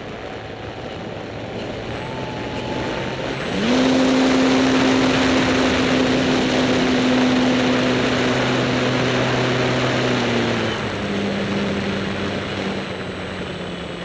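Electric motor and propeller of an Apprentice S15E RC trainer plane, heard from a camera on its wing, droning steadily with wind rushing over the microphone. About three and a half seconds in, the motor speeds up to a higher pitch and the wind noise grows louder. Near eleven seconds in, the pitch steps back down.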